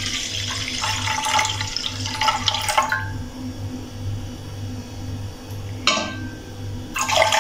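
Milk pouring from a glass jug into a metal karahi, a steady splashing stream that stops about three seconds in, with further brief splashes near the end.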